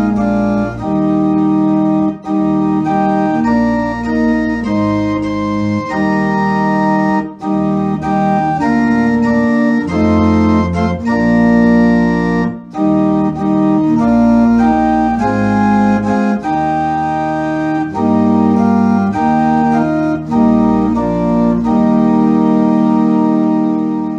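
Organ playing a slow hymn tune in full, sustained chords that change about once a second, ending on a long held chord.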